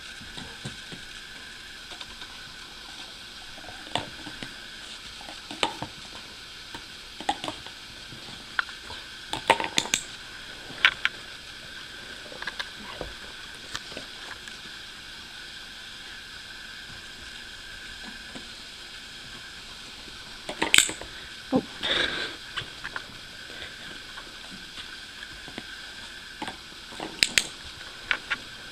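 Scattered clacks and knocks of hard plastic rings as a golden retriever picks them up in her mouth and drops them onto a toy stacking post, over a steady faint hiss. The loudest knocks come in a short cluster about two-thirds of the way through.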